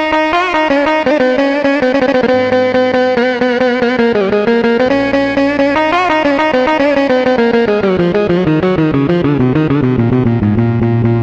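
Sampled Levantine buzuq played on a Korg arranger keyboard: a fast tremolo-picked melody winding downward over a held low bass note.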